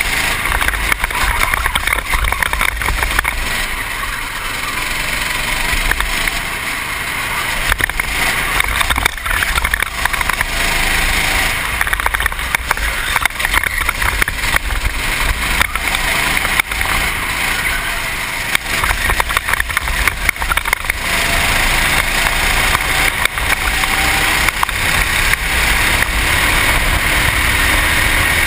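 Racing kart engine running hard, heard on board through a helmet-mounted camera, its pitch rising and falling with the throttle through the corners. Wind rushes over the microphone, and other karts' engines run close by.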